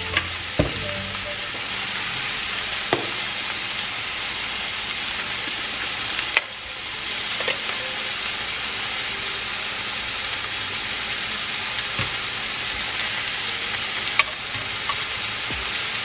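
Vegetables sautéing in a frying pan, a steady sizzling hiss, with a few short clicks and knocks of a metal potato masher and seasoning containers against a mixing bowl.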